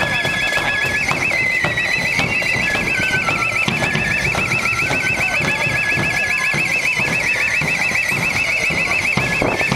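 An electronic alarm sounding continuously, its high tone warbling rapidly up and down without a break, over the general noise of a street crowd.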